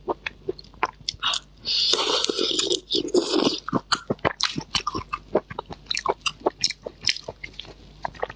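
Close-miked eating: a person crunching loudly into food for about a second and a half, with rapid chewing clicks and mouth smacks before and after.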